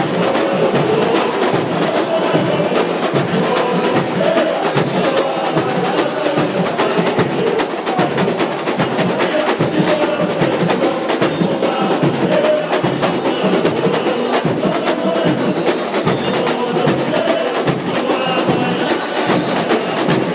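Samba parade percussion: a drum section playing a dense, driving rhythm without a break, with voices singing the samba song over it.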